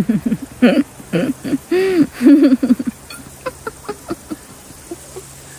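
Someone drinking from a plastic bottle in long swigs: a quick run of about eight pitched, hoot-like glugs in the first three seconds, then a few faint clicks.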